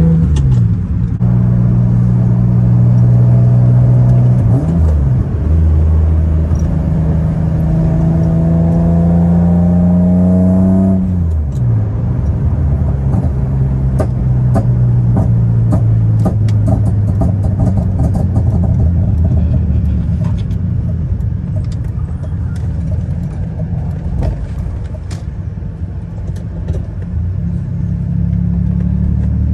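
BMW M3's engine pulling under acceleration, its pitch climbing steadily for about nine seconds and then falling away sharply. After that the car runs on with a steady, lower rumble and a scatter of light ticks.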